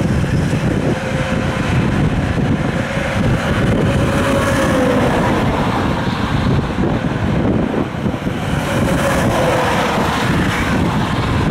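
Highway traffic going past at speed: semi trucks and cars, with steady tyre and engine noise and wind on the microphone. A whine falls in pitch twice as vehicles go by.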